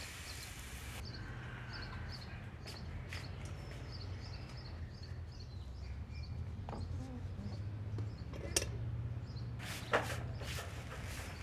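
Small birds chirping in short, quickly repeated chirps over a low steady hum. Two sharp knocks come near the end.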